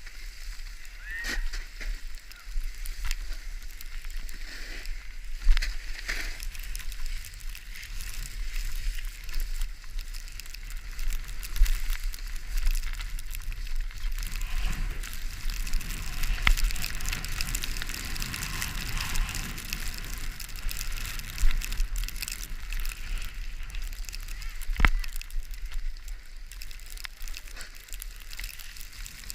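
Skiing down a slope on snow: a steady hiss and scrape of edges sliding over powder and ice, with a low rumble of wind on the microphone and a few sharp knocks along the way.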